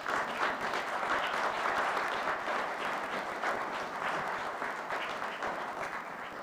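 Audience applauding: a room of people clapping after an oath of office, swelling about two seconds in and dying away near the end.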